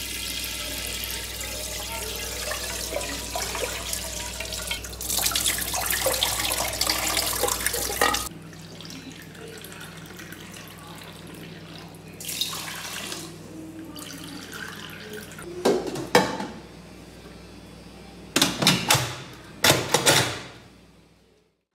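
Tap water running into a stainless steel pot of rice, cutting off about eight seconds in. Later comes a short pour of water, and near the end a run of knocks and clatters as the lid of an electric pressure cooker is fitted and closed.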